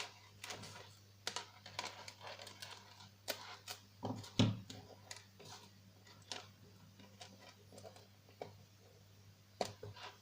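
Small metal clicks and taps, irregular and scattered, of jewellery tools and chain links as a split ring is worked onto a bracelet chain, over a faint steady hum.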